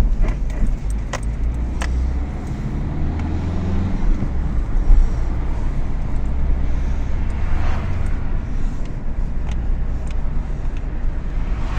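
Car driven over bumps, heard from inside: a steady low road-and-engine rumble with sharp short knocks from the suspension, a few in the first two seconds and more near the end. This is the suspect noise, which the owner thinks may come from worn shock absorbers.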